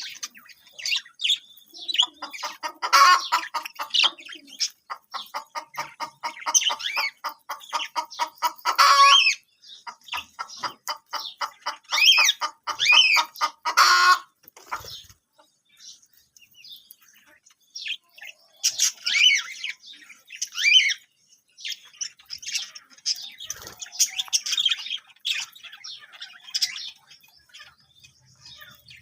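Budgerigars chirping and warbling, with a long run of rapid, buzzy pulsed chatter in the first half and scattered high chirps through the rest.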